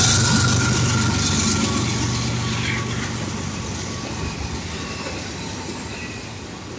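Norfolk Southern intermodal freight train passing: the low drone of its GE ES44AC diesel locomotives fades steadily away as the container cars roll by on the rails.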